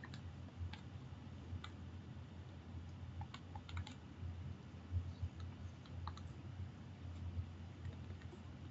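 Scattered light clicks and taps of a stylus on a tablet screen during handwriting, over a faint low hum.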